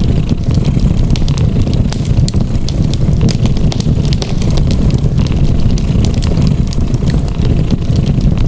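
A cat purring in a steady low rumble, layered with a wood fire crackling in irregular sharp pops and snaps.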